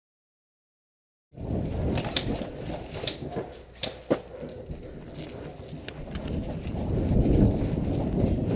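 Dead silence for about the first second, then a steady low rumbling of movement and handling noise on a body-worn camera, with a few sharp clicks between two and four seconds in.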